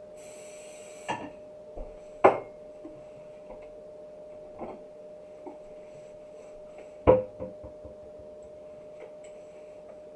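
Scattered knocks and clinks of a frying pan being handled on a stovetop, with two louder knocks about two and seven seconds in and a brief hiss in the first second. A faint steady hum runs underneath.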